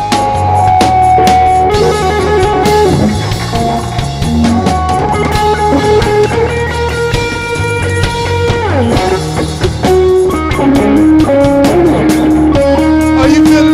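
Live rock band playing electric guitar over drums. Sustained guitar notes include a long downward pitch slide about nine seconds in and a steady held note near the end.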